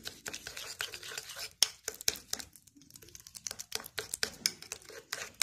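A spoon stirring and mashing a thick paste of egg yolk, instant coffee and soft cheese in a small bowl, with irregular quick clicks and scrapes against the bowl that pause briefly about halfway through.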